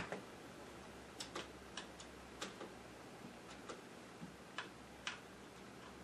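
Faint, scattered keystroke clicks, about nine spread unevenly over a few seconds, from an Azio MGK L80 mechanical keyboard with brown (non-clicky) switches pressed gently.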